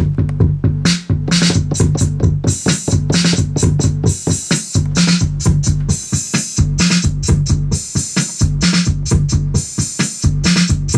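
Programmed drum-machine beat looping from a Native Instruments Maschine Mikro: a deep kick pattern with crisp higher drum hits over it, repeating steadily.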